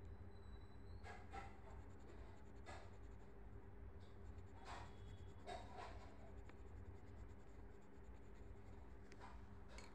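Faint scratching of a coloured pencil on paper, a handful of short strokes, over a steady low hum.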